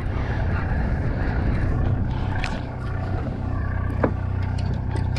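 Boat engine running steadily with a low hum, with a sharp knock about four seconds in.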